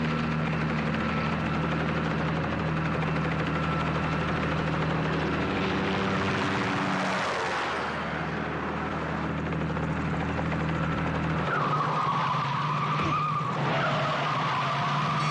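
Vehicle engines running hard with a steady drone, then a wavering high tire squeal from a vehicle skidding for the last few seconds.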